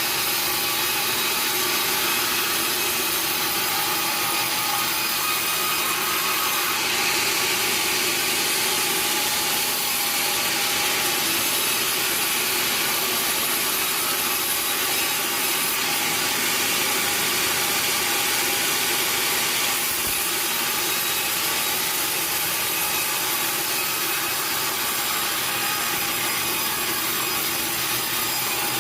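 Sawmill saw cutting steadily through a teak log: an unbroken, loud cutting noise with a thin, high whine over it.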